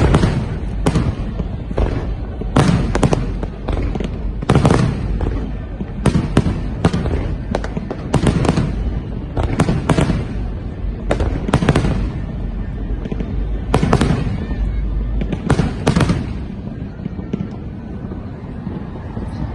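Aerial fireworks going off: an irregular run of sharp bangs, sometimes two or three close together, over a continuous low rumble. The bangs thin out in the last few seconds.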